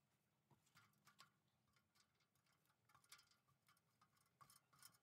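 Near silence, with faint scattered ticks and clicks.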